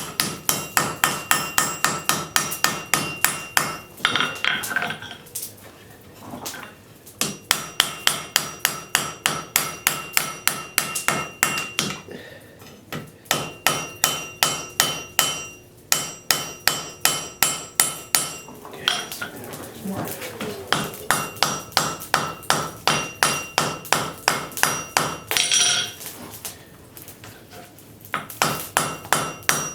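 Hand hammer striking a hot railroad spike on an anvil, about three blows a second in runs separated by several short pauses, each blow leaving a brief metallic ring; the smith is rounding over the spike's edges.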